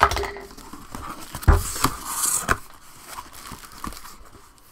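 Cardboard box being opened by hand: the flap is pulled free with a sharp rip, then there are a few knocks of cardboard and the crinkling and rustling of packing inside.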